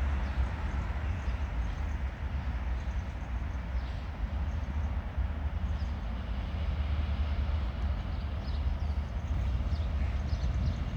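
HŽ class 2041 diesel locomotive running under load as it pulls a train of freight wagons: a steady low rumble, with faint high squeaks from the wheels starting in the last few seconds.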